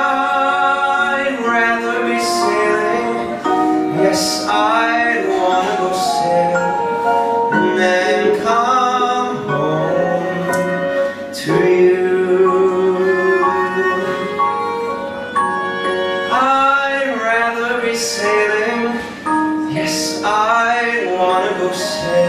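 A man singing a show tune solo into a handheld microphone, over instrumental accompaniment.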